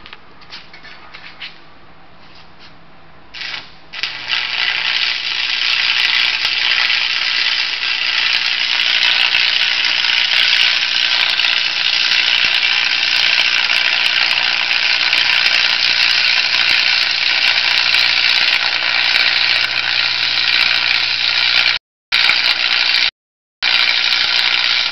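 Lincoln 225 AC stick welder striking an arc. A few scratching ticks of the electrode come first, then the arc catches about three and a half seconds in and burns with a loud, steady crackling hiss over a low hum. The sound cuts out twice briefly near the end.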